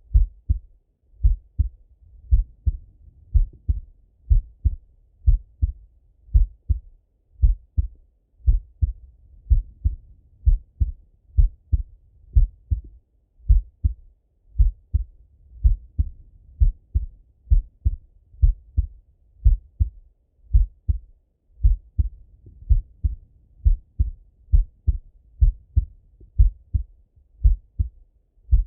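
A man's slow, resting heartbeat heard through a Littmann stethoscope: steady lub-dub pairs of low thuds, about one pair a second.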